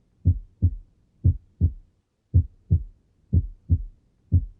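Recording of normal heart sounds through a stethoscope: the first and second heart sounds (S1 and S2) in paired lub-dub beats, about one heartbeat a second. The first sound of each pair is lower-pitched and longer than the second.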